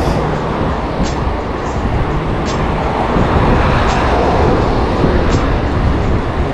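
Wind rushing over the microphone with road rumble from a bicycle ride at speed, steady and loud. A faint high click repeats about every second and a half.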